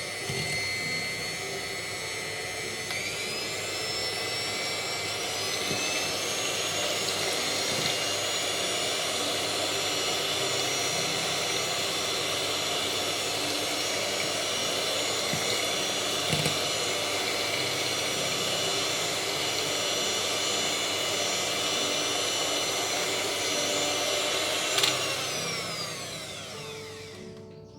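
Electric mixer motor whipping cream cheese, yogurt and cream. It whines up to speed, steps up in pitch twice in the first few seconds, runs steadily, then winds down as it is switched off near the end.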